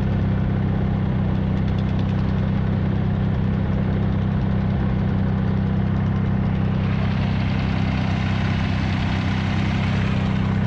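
Tractor engine running steadily at low speed, heard close up from the driver's seat. A rushing hiss joins in for a few seconds past the middle.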